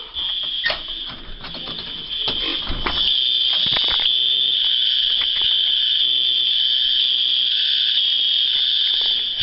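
Apartment building fire alarm sounding a loud, high-pitched steady tone, broken up at first and then continuous from about three seconds in. A few knocks and rustles in the first seconds.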